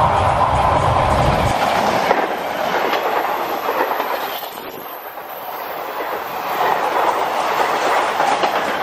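A 1400 hp diesel electric multiple unit (DEMU) train passing close at speed. Its diesel engine gives a heavy low rumble that drops away about a second and a half in, leaving the rushing wheel-on-rail noise and clatter of the coaches. That noise dips briefly midway and then swells again.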